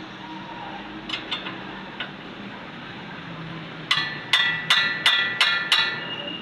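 A hammer striking metal: a few light taps, then six sharp ringing blows in quick, even succession about two seconds from the end.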